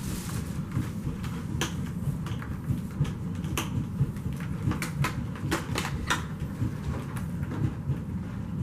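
A long vacuum-cleaner power cord being wound up by hand onto an upright vacuum: irregular light clicks and knocks of the cord against the machine, over a low steady rumble of handling.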